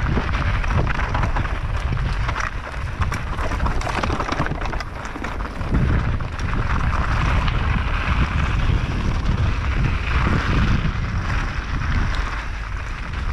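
A mountain bike rolling downhill on a dirt and gravel trail. The tyres crunch over loose stones and the bike gives scattered clicks and rattles, under heavy wind rumble on the microphone.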